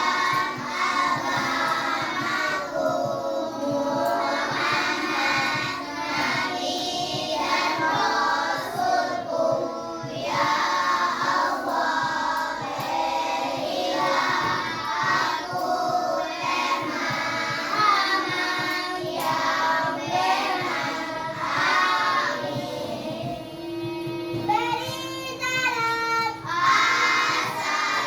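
A group of children singing together, with pitched voices continuing throughout.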